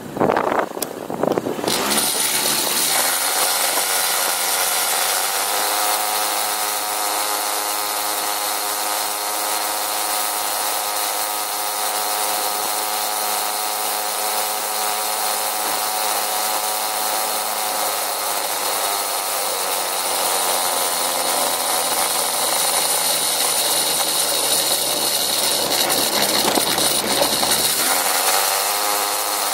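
Small motor scooter's engine running as it rides, revving up in the first couple of seconds as it pulls away, then holding a steady buzzing pitch that dips a little past the middle and rises again near the end, with a steady rush of noise over it.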